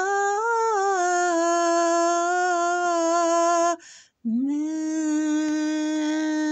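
A woman's solo voice singing unaccompanied, holding two long notes with a short breath between them about four seconds in: the drawn-out closing notes of a sung Sabbath blessing.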